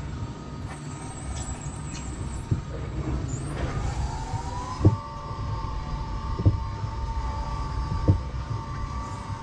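Mountain Innovations Rollbob alpine coaster sled rolling down its rail track with a low rumble. A wheel whine rises about four seconds in and then holds steady, with a sharp knock about every second and a half.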